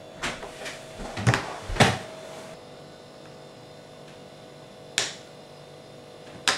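A few sharp clicks and knocks, several in the first two seconds and two more later, one about five seconds in and one near the end, over a faint steady hum that stops partway through.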